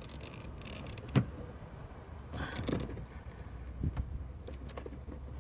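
Self-adjusting wire stripper snapping shut on speaker cable: one sharp click about a second in, then handling rustle and a few smaller clicks as the insulation is pulled off.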